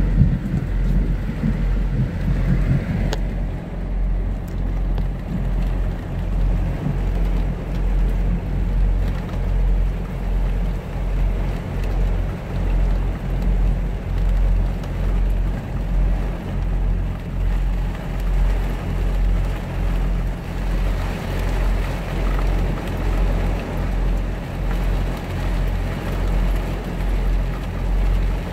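Semi truck's diesel engine idling with a low, even throb, and rain pattering on the cab. A roll of thunder dies away in the first second or so.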